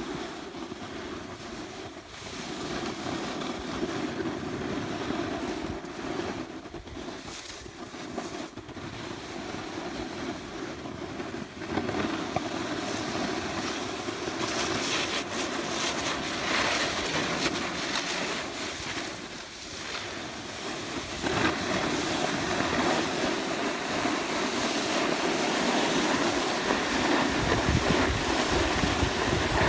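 Steady rushing scrape of gliding downhill over snow, with wind buffeting the microphone; it grows louder about two-thirds of the way in and picks up a low rumble near the end.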